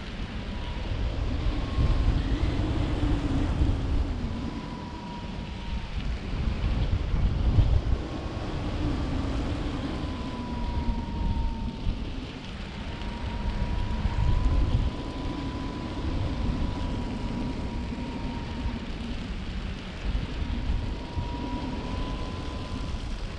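Wind buffeting the microphone in paraglider flight: a gusty rumbling rush that swells and eases every few seconds. A thin, steady whistle comes and goes under it.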